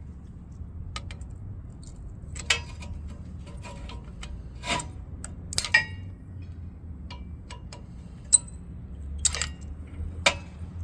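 Irregular metallic clicks, clinks and knocks as seized, rusted rear brake pads and their metal clips are worked loose from the caliper, a few of the knocks ringing briefly.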